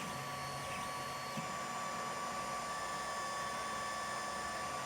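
Tronxy 3D printer running mid-print: its cooling fan gives a steady whir with a high whine. The stepper motors hum in short notes that change pitch during about the first second and a half, then settle.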